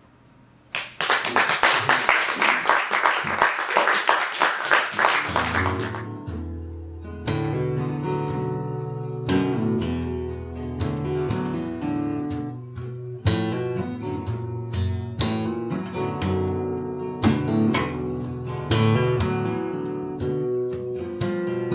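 About five seconds of applause, starting about a second in, then acoustic guitar playing over the rest, with a steady run of plucked notes over a bass line.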